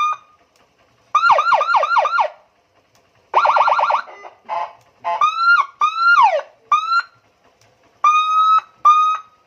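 Twelve-tone electronic police-escort siren on a Honda Megapro motorcycle, sounding through a 25-watt speaker as it is switched through its tones in short bursts. First come four quick falling chirps, then a fast warble, then rising-and-falling sweeps, and near the end two short steady tones.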